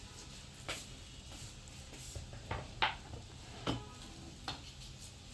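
A cucumber being sliced thin, heard as about five separate sharp cutting strokes spread over a few seconds.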